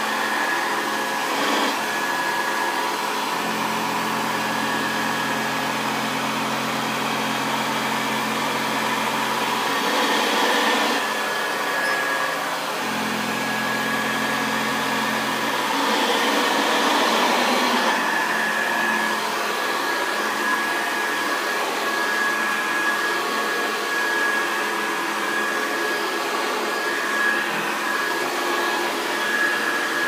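A 1960s Hoover Convertible 70 upright vacuum cleaner running steadily as it is pushed over carpet, with a steady high whine. A lower hum comes in twice, for a few seconds each time.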